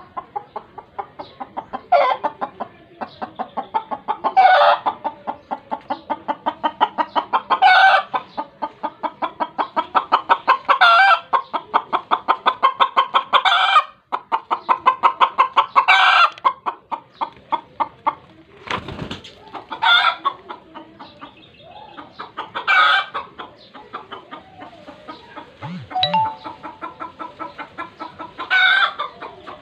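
A hen cackling its egg-laying song just after laying an egg: a steady run of rapid clucks, about four or five a second, broken every few seconds by a louder, drawn-out squawk.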